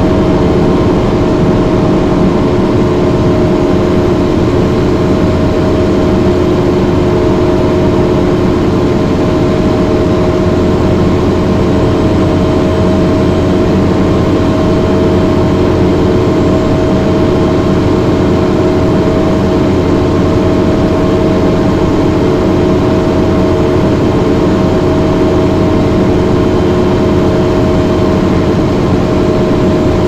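Detroit Diesel Series 50 four-cylinder diesel engine of a 1994 TMC RTS transit bus, heard from inside the bus, running loud and steady with no change in engine speed.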